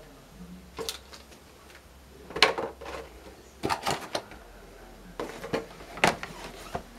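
Scattered sharp clicks and knocks as a cardboard model box and its plastic packaging are handled and lifted away. The loudest knock comes about two and a half seconds in, with a cluster just before four seconds and a last one about six seconds in.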